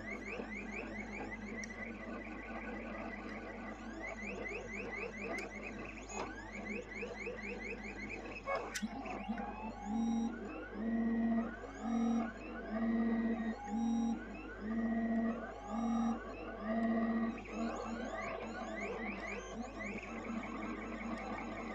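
Stepper motors of an XYZprinting da Vinci mini w+ 3D printer whining in quick rising and falling pitches as the print head moves over the bed laying down the first layer. From about ten seconds in, the moves settle into a regular back-and-forth, with a tone starting and stopping about once a second, over a steady low hum.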